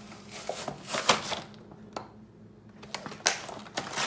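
Toy packaging being handled: irregular clicks, taps and rustles, with a short lull about halfway through.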